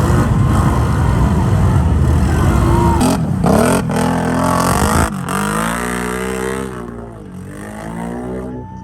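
ATV engine running hard at high revs. About five seconds in its pitch drops and swings up and down with the throttle, and it fades toward the end.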